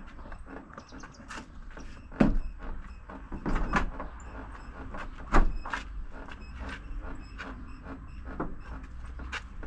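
Irregular knocks and clunks from hands-on work on the motorhome's body. The loudest strikes come about two seconds in and just after five seconds, with a cluster in between.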